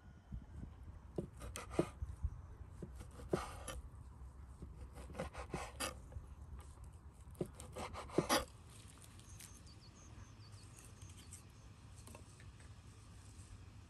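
Kitchen knife cutting raw chicken breast on a wooden cutting board: a run of sharp knocks as the blade meets the board, with a few short scrapes as the blade slides through the meat. After about eight seconds it turns much quieter, with only a few light clicks.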